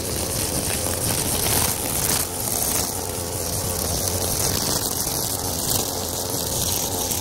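String trimmer cutting thick overgrown grass: a steady, harsh noisy whir without a clear engine pitch.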